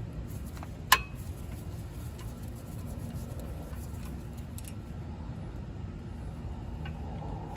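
Metal hand tools clinking during a brake job: one sharp metallic click about a second in, then a few faint ticks over a low steady background hum.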